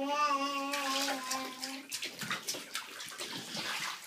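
Water splashing and sloshing in a bathtub as a baby is washed by hand. A voice holds one long, steady note over the first two seconds.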